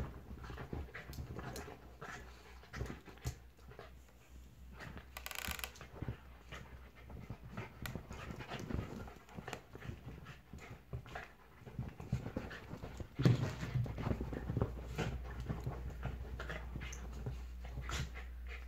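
A Shetland sheepdog and a Jack Russell terrier play-fighting on a couch: panting, with irregular scuffling and rustling of paws and bodies on the cushions. A louder burst comes about two-thirds of the way through.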